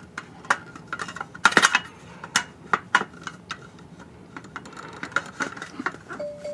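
Metal drawer slide being fitted into the sheet-steel side panel of an IKEA Helmer cabinet: a run of light metallic clicks and taps as its tabs are worked into the slots, with a louder clatter about a second and a half in.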